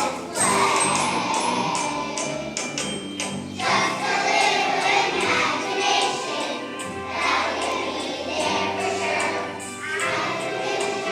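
A group of young children singing a song together in unison over a musical accompaniment with a steady beat.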